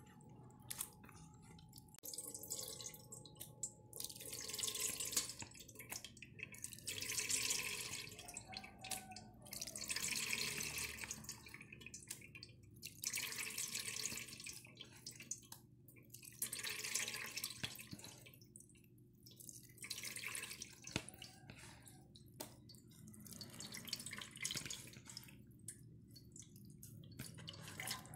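Coconut milk squeezed by hand from grated coconut, splashing and dripping through a mesh sieve into a bowl. It comes in repeated bursts, one with each squeeze, about every two to three seconds.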